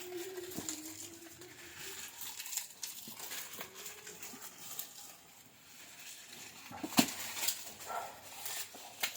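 Goats in a pen: one long, drawn-out bleat in the first two seconds, then scattered clicks and knocks, with a sharp knock about seven seconds in.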